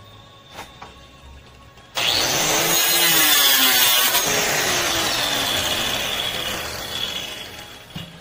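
Electric saw cutting through the wooden door-frame jamb, starting suddenly about two seconds in and running for about six seconds with a wavering motor tone: trimming off the excess wood at the top of the frame.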